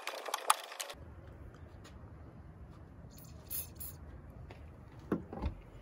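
Sharp metallic clicks of a hand tool on rusty suspension parts in the first second, then an aerosol spray can hissing in a few short sprays about three seconds in, and a couple of knocks near the end.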